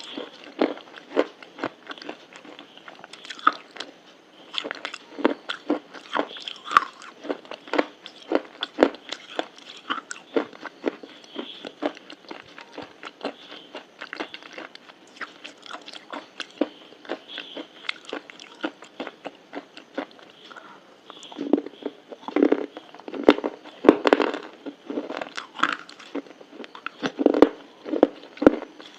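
Crunchy food being bitten and chewed close to the microphone: a steady run of short, sharp crunches, growing louder in the last third.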